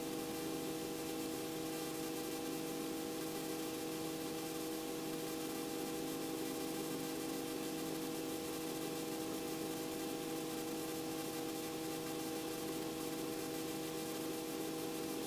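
Robinson R44 helicopter's engine and rotors running steadily in a low hover, heard inside the cabin as an even drone with a few constant tones.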